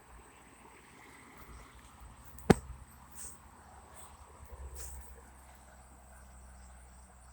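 Quiet outdoor walking ambience: a faint low rumble of wind on the microphone and light rustling, with one sharp click about two and a half seconds in.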